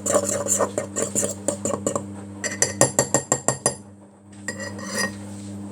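A metal fork clinking and knocking against the inside of a mug in quick repeated strokes while mashing Oreos into milk. A sharper run of about eight clinks comes a little past halfway, then the strokes stop.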